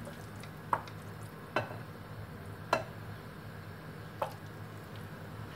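A hand squishing through a bowl of wet, oily chopped onion and spices, lifting out pieces of chicken, with four short sharp clicks about a second apart over a steady low hum.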